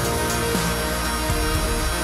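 Background electronic music.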